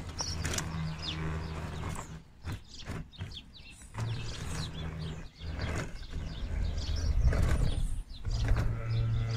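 Electric scale RC crawler's motor and geartrain whirring as it climbs over a soil mound, stopping and starting a couple of times, with dirt crunching and crackling under its tyres.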